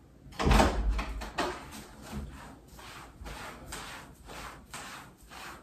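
Footsteps on a hard plank floor: a louder thump about half a second in, then soft, even steps about two a second.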